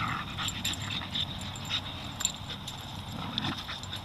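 A dog moving and making small sounds, with scattered light clicks and taps.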